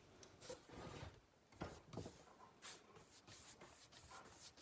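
Near silence with a few faint, soft strokes and taps: a paintbrush working paint onto a plywood wall.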